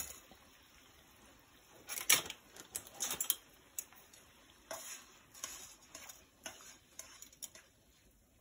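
Dry spaghetti strands clicking and rattling against the pot's rim in short bursts as they settle into boiling water, over a faint steady hiss.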